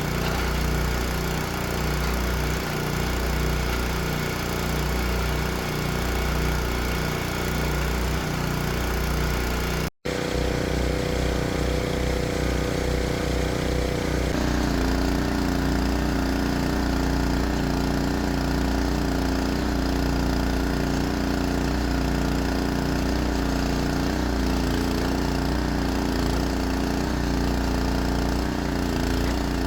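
Small single-cylinder gas engine of the drilling rig running steadily, driving the rig's hydraulics. The sound breaks off for an instant about ten seconds in, and a few seconds later a steady higher hum joins it.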